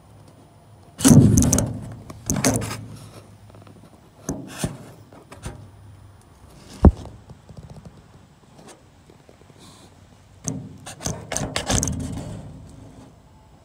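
Irregular knocks, rubs and scrapes of a camera being worked about inside a Cessna wing and bumping its sheet-aluminium ribs and skin: a loud clatter about a second in, one sharp knock near the middle, and another run of scraping and knocking near the end.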